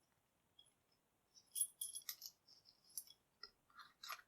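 Faint metallic clicks and clinks of a brass Master Lock padlock being handled, several short ones spread over the last few seconds.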